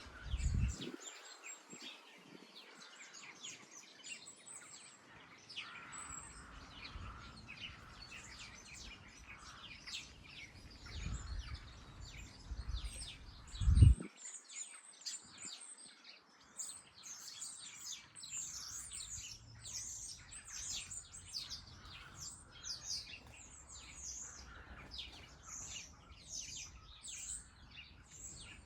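Small garden birds chirping and calling busily, the chirps coming thicker in the second half. A low thud sounds about a second in, and a louder low rumble and thump comes about halfway through.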